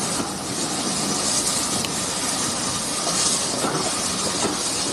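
Steam locomotive letting off steam: a steady hiss.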